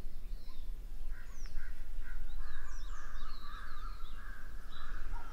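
Birds chirping and calling, with quick high chirps from about a second in, over a steady low hum.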